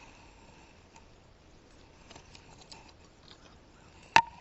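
A few faint ticks, then a single sharp knock about four seconds in.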